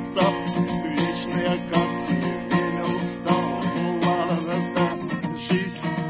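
Acoustic guitar strummed in a steady rhythm, playing a song accompaniment.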